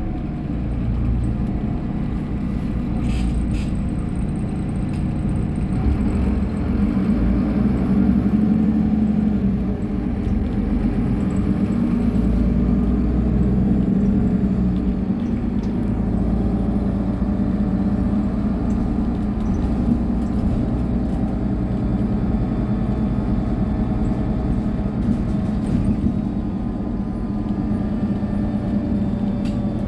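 Diesel engine of a Solaris Urbino 18 III articulated bus running, a steady low rumble whose pitch and loudness rise and fall slightly.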